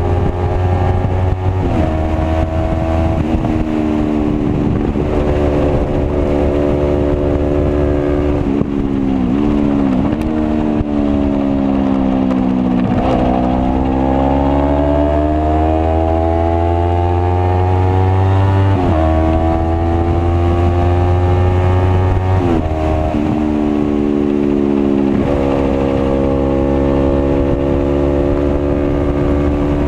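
Motorcycle engine at speed on a racetrack, its revs climbing and then falling sharply at each gear change. The pitch sinks for a few seconds near the end of the first third as the bike slows, then climbs steadily for several seconds before an upshift drops it again.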